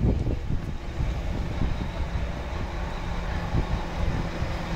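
Scania K320UA articulated bus's diesel engine running with a steady low rumble, a steady hum joining in about a second and a half in.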